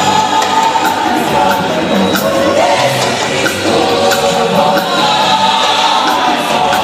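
Live gospel music from a band on a loudspeaker system: several voices singing together, backed by keyboards and a drum kit with regular cymbal strokes.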